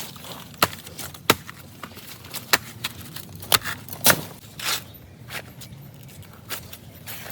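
A series of about eight sharp, irregularly spaced knocks or chops, over a low steady outdoor background.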